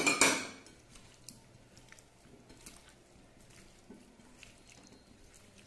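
A sharp knock right at the start that fades within half a second, then soft, faint squishing and small clicks as a hand mixes marinated chicken cubes with chopped onion, capsicum and carrot in a ceramic bowl.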